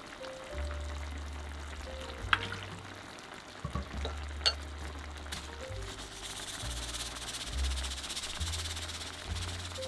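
Tomato and onion sauce sizzling and simmering in a frying pan, the sizzle growing stronger from about halfway. Two sharp taps come about two and four and a half seconds in, over soft background music with low bass notes.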